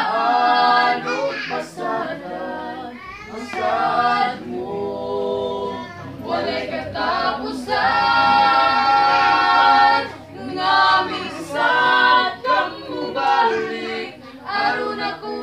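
A trio of young voices, a woman, a young man and a girl, singing a hymn together. The phrases have long held notes and short breaks between them.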